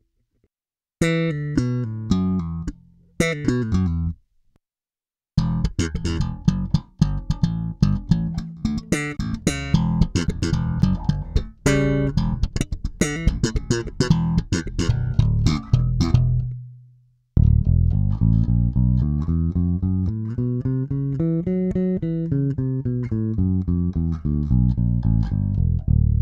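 Five-string electric bass recorded direct, first played dry with no compression: short plucked notes with gaps between phrases. About 17 seconds in, after a brief pause, a new phrase of longer sustained notes runs up and back down in pitch, played through a Pete Cornish OC-1 compressor pedal.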